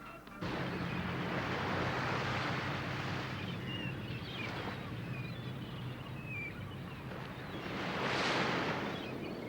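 Ocean surf on a beach: a steady wash of waves that swells twice, once early and once near the end, as waves break, with a few faint high chirps in between.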